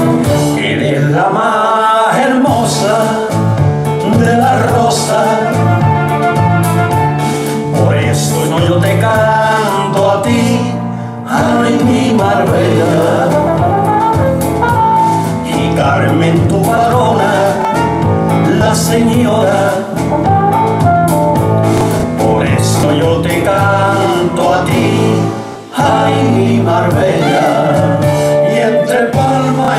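A male vocal duo singing a Spanish song over a full instrumental accompaniment with a steady bass, with two brief dips in the music partway through.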